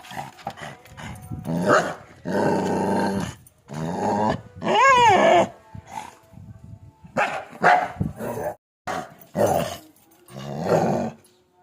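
Dogs barking and growling in a run of separate bouts a second or so apart, one near the middle with a call that rises and falls in pitch.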